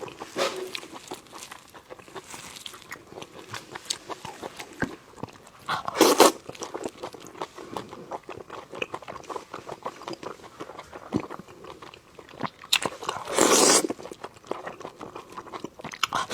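Close-miked chewing and biting of cooked sheep intestines: a run of small wet clicks and crunches, with two louder, longer sounds about six seconds in and near fourteen seconds.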